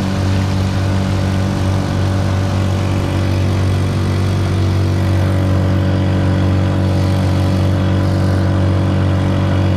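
Honda Supra 125 motorcycle engine, a single-cylinder four-stroke, driving the boat at high revs in fourth gear with a steady, unchanging note, over the rush of water along the hull.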